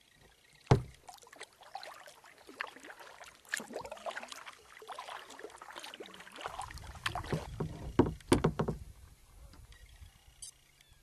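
Kayak being paddled: water splashing and dripping off the paddle, with hollow knocks of the paddle against the hull. The sharpest knock comes just under a second in and two more come around eight seconds in, with a low rumble in the second half.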